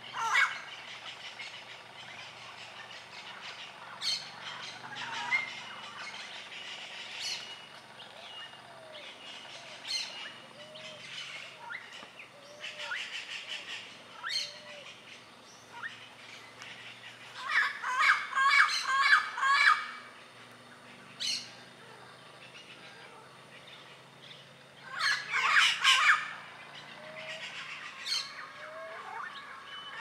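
Yellow-naped parrots (Amazona auropalliata) calling: scattered single calls, then two loud rapid runs of repeated calls, one a little past halfway and one near the end.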